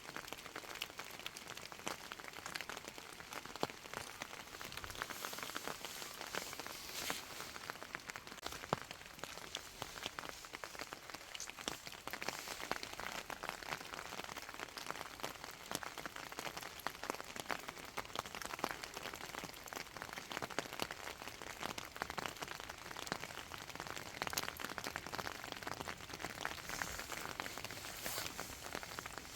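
A steady, dense patter of many small irregular ticks and crackles with no clear rhythm.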